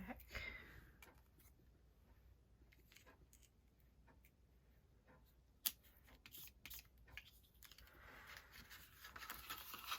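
Mostly quiet handling of cardstock and 3D foam pads, with a few sharp clicks around the middle and soft paper rustling building near the end.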